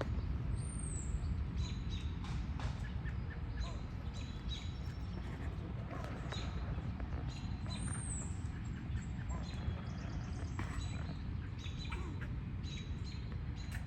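High chirping calls and scattered short clicks over a steady low rumble; a couple of high arching chirps stand out, about half a second and about eight seconds in.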